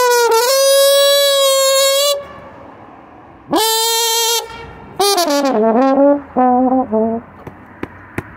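Slide trombone played solo: a long high note held about two seconds with a scoop up into it, a shorter note, then a falling phrase of short notes. A few faint clicks follow near the end.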